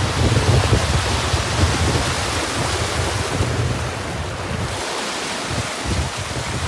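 Small, fast-flowing river rushing over rocks in a steady wash of whitewater, with wind buffeting the microphone as a low rumble that eases briefly about five seconds in.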